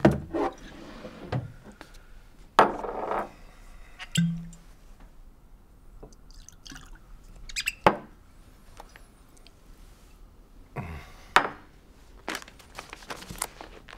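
A glass bottle of spirits and a glass being handled on a desk: sharp glass knocks as they are set down, a short pour of liquid about two and a half seconds in, and a run of light clinks and taps near the end.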